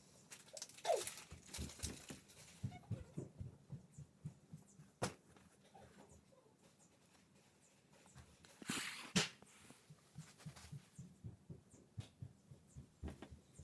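Dog making close-up noises: faint, irregular soft snuffles and breaths, with a short falling whine about a second in and a louder rustling burst around nine seconds.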